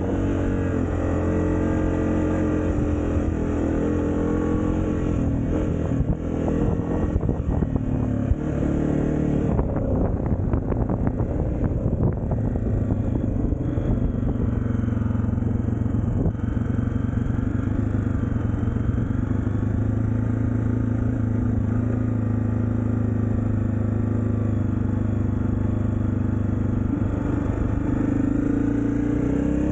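Dirt bike engine running under throttle as it is ridden, its pitch rising and falling with throttle and gear changes. There is a stretch of clattering about a third of the way through.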